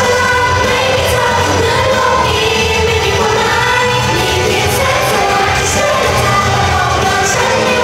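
Live pop song: a group of female voices singing together over steady band-style backing music.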